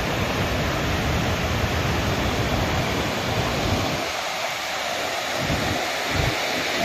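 Muddy flash-flood water and debris rushing in a steady, continuous wash of noise, with wind buffeting the microphone in low rumbling gusts that ease about four seconds in.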